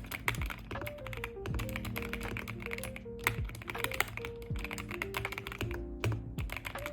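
Fast, continuous typing on a Kzzi K98 PRO mechanical keyboard, many keystrokes a second, over background music.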